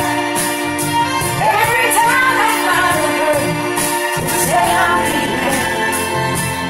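A woman singing into a corded karaoke microphone over a pop backing track.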